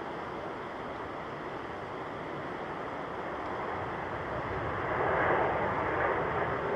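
Jet airliner engine noise, a steady rush that swells about five seconds in as the Japan Airlines Boeing 737-800 passes, then eases slightly.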